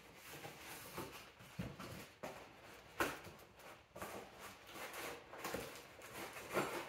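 Cardboard box and wrapping being handled: irregular rustling and crinkling, with a sharper crackle or knock about three seconds in.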